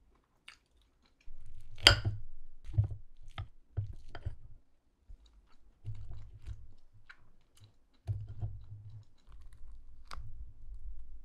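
A person chewing and biting food, with irregular crunches and clicks; the sharpest crunch comes about two seconds in.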